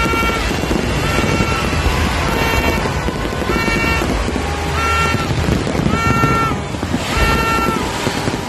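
Fireworks display bursting and crackling continuously, with dense noise and low thumps. Over it, a high pitched tone sounds for about half a second roughly once every second, about seven times.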